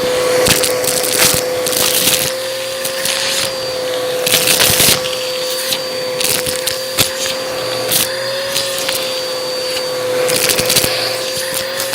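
Bissell vacuum cleaner running with a steady motor whine while its brushroll crunches through debris in irregular crackling bursts.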